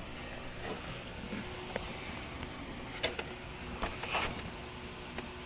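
Faint handling noise as a small camera is moved and repositioned among the plastic grille parts: a few light clicks and rustles, about three seconds in and again near four seconds, over a low steady hum.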